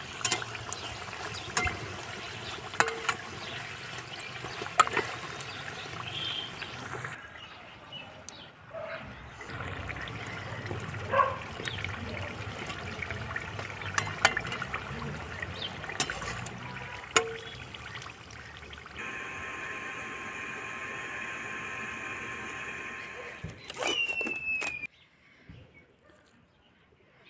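Hot oil bubbling and sizzling around potato parathas deep-frying in a wok, with sharp clicks as a metal slotted spoon knocks against the pan and turns them. The frying cuts off near the end.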